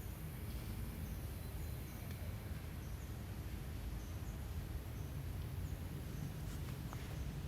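Outdoor ambience: a steady low rumble with faint, short, high chirps repeating about once a second.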